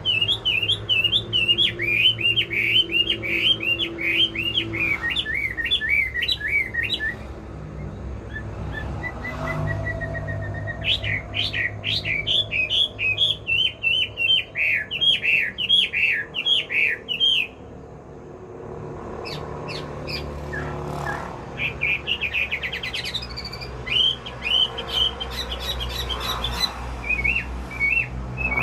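A wambi songbird singing vigorously, in rapid runs of high chattering chirps. The song comes in three long bouts with short pauses between them, over a steady low hum.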